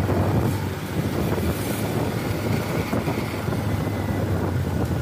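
Mitsubishi Canter truck's diesel engine running steadily under load as the loaded truck climbs a steep grade, heard from close behind, with wind noise on the microphone.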